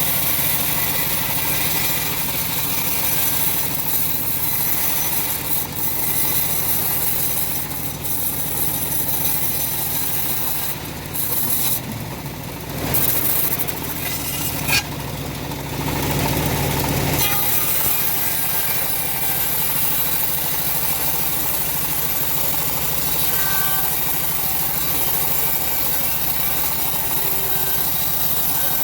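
Homemade engine-driven bandsaw running steadily while its blade saws through semi-dry teak. Around the middle the sound shifts for a few seconds, with a single sharp click, before the steady running and cutting resume.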